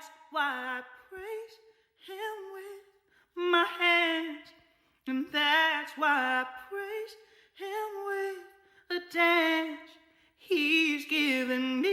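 A woman singing unaccompanied, in short held phrases with vibrato and brief pauses between them.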